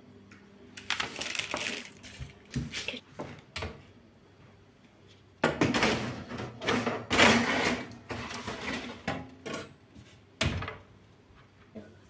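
Metal baking tray of cookies scraping and clattering as it is handled and slid onto the oven rack, loudest over a few seconds past the middle. A single sharp knock near the end.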